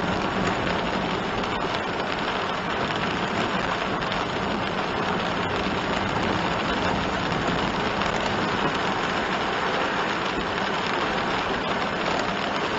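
Heavy rain falling steadily on a kei van's roof and windscreen, heard from inside the cabin while driving on a flooded road, with tyre noise from the wet surface mixed in.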